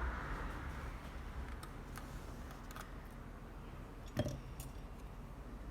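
Faint scattered clicks and light taps of small tools and parts being handled on a repair bench, with one sharper click about four seconds in, over a low steady background hiss.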